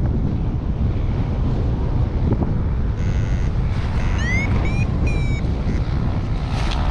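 Strong, gusty wind buffeting the microphone with a steady low rumble. About halfway through, a few short high-pitched rising tones sound over it.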